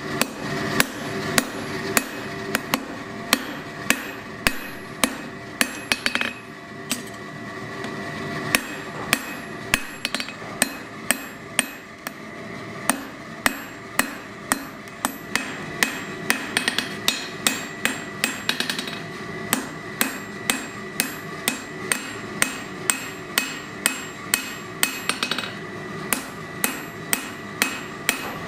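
Hand hammer forging a glowing metal bar held in tongs on an anvil, about two blows a second, each with a bright ring from the anvil.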